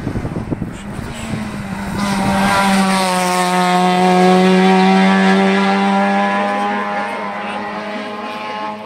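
Hill-climb race car's engine held at high revs as the car passes close by, its note steady in pitch, loudest midway and then fading as the car drives away up the road.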